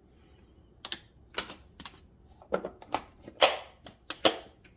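Butter spitting and popping as it melts in a hot nonstick skillet beside reheating chorizo: irregular sharp pops and crackles, a few each second from about a second in.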